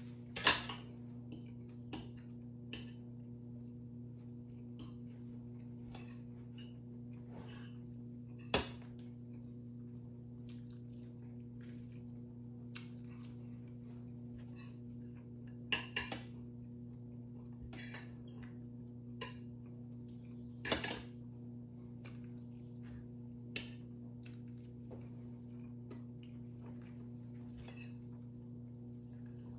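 Knife and fork clinking and tapping against a plate now and then while a meal is cut and eaten, a handful of louder clinks among many faint taps, over a steady low hum.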